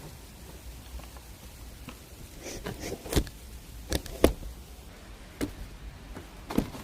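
Scattered light knocks and clicks, about seven of them, irregularly spaced, over a low steady background.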